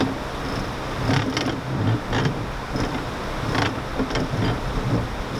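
A series of sharp clicks, each with a low knock, coming irregularly at about two a second.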